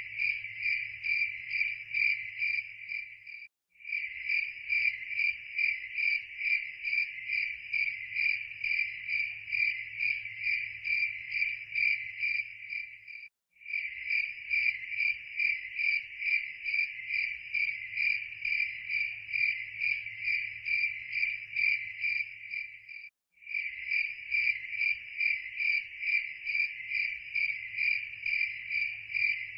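Cricket chirping in a fast, even pulse at a high, steady pitch. The chirping drops out for a split second three times, about ten seconds apart.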